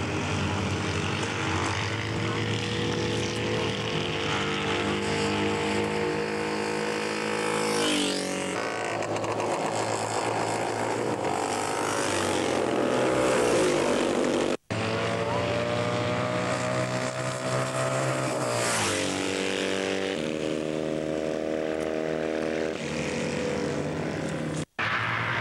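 Classic racing motorcycle engines running hard on the track, rising and falling in pitch several times as bikes accelerate and pass. The sound cuts out briefly twice.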